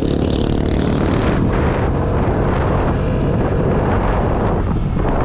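Vespa S125 scooter on the move, its single-cylinder four-stroke engine running steadily, with wind rushing over the camera microphone.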